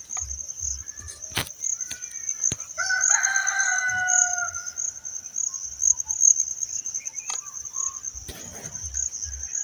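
A rooster crows once, one drawn-out call about three seconds in, over a steady high insect drone.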